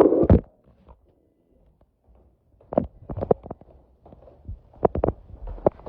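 Footsteps: two short runs of quick knocking steps, the first about three seconds in and the second near the end, after a brief quiet.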